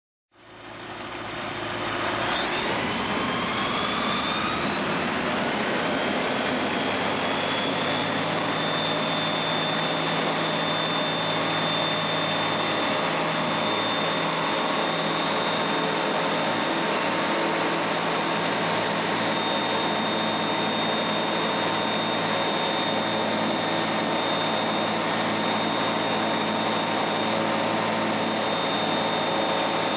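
Skyranger microlight's Rotax 912 flat-four engine and propeller at takeoff power, heard from inside the cockpit with wind noise. The sound fades in over the first couple of seconds, its pitch rising as the power comes up, then holds steady through the takeoff roll and climb.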